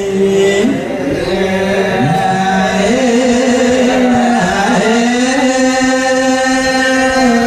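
A single voice chanting a slow melody, holding long notes that waver and glide from one pitch to the next.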